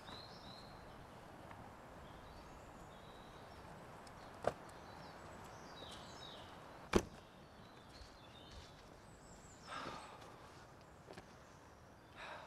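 A folding camp chair being set up: its frame gives two sharp clicks, about four and a half and seven seconds in, and its fabric rustles briefly near the end. Faint bird chirps sound in the background.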